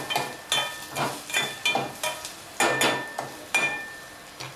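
Metal spoon stirring fried onions and sugar in a small stainless steel pot, clinking against the pot's side about twice a second, each clink ringing briefly. The stirring stops shortly before the end.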